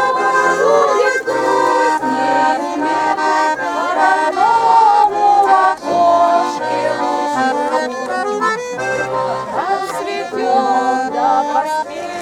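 Accordion playing a folk-style tune, melody over sustained chords.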